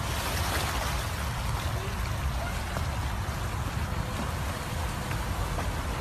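Steady rush of water in a pond: a swimmer's splashing strokes mixed with the spray of a pond fountain, over a low rumble.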